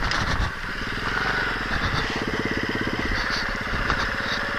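Nitro Sky 125cc pitbike's single-cylinder four-stroke engine running at a steady throttle while riding. There is a short dip in level about half a second in, then an even engine note.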